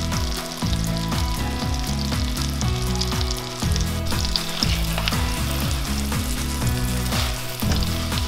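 Thick onion slices sizzling in melted butter in a frying pan over low heat, with background music underneath.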